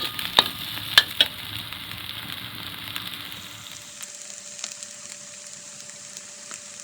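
Yam cakes frying in a very hot pan with dark sweet sauce, sizzling steadily. A spatula knocks sharply against the pan four times in the first second or so, and the sizzle eases a little after about four seconds.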